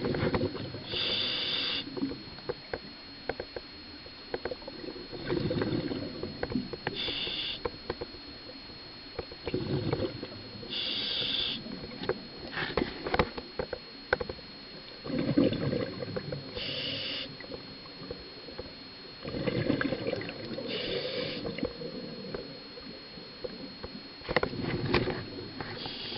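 Scuba diver breathing underwater through a regulator: a gurgling rush of exhaled bubbles and a short hiss of inhalation, one breath about every four to five seconds, six in all. A faint steady high whine runs beneath.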